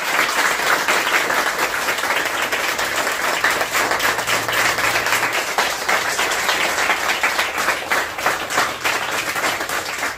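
A group of people applauding, many hands clapping together in a steady, dense patter.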